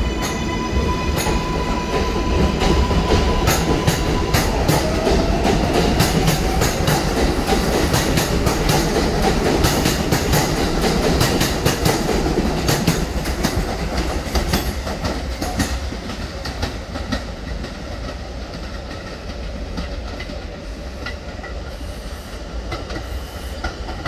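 R142A subway train pulling out of the station: a steady electric motor whine, then a second rising whine as it speeds up, over wheels clacking across rail joints. It fades after about thirteen seconds as the last car passes.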